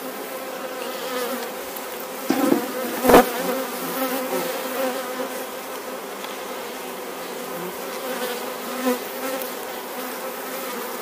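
Honeybee colony buzzing steadily in an open hive, with two wooden knocks about two and three seconds in as hive frames are prised apart and lifted.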